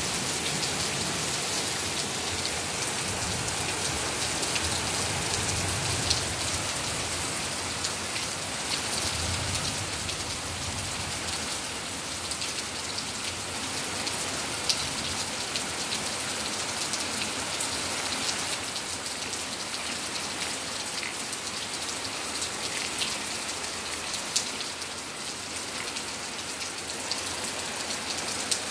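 Steady rain falling on pavement and surfaces, with a few sharp ticks of drops striking close by. A low rumble of distant thunder swells and fades about five to eleven seconds in.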